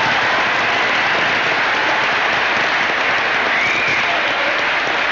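Large audience applauding steadily after a line of a speech.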